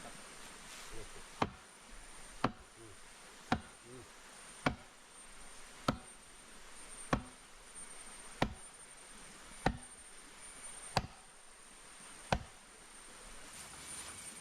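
Ten steady chopping strikes, one about every second and a quarter, each a sharp blow with a short ring. A thin high insect drone runs under them.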